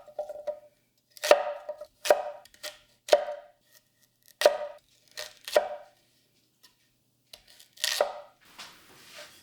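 Heavy bunka kitchen knife chopping through vegetables onto a cutting board: about eight sharp, separate strokes at uneven intervals, each with a short ringing tone.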